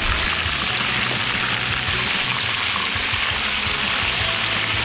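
Chicken thighs sizzling steadily as they shallow-fry in hot beef tallow in a cast iron skillet, with background music.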